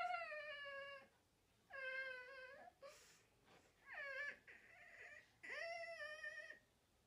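A child's high-pitched, drawn-out squeals, four of them, each about a second long and falling in pitch: stifled squealing laughter while lipstick is put on his lips.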